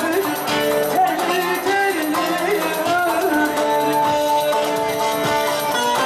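Turkish folk music: a bağlama (long-necked lute) playing with an ornamented singing voice over it.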